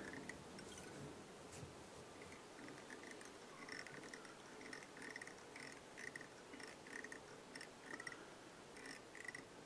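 Near silence: faint room tone with soft, irregular little ticks as tying thread is wrapped around the base of a polypropylene yarn parachute post on the hook.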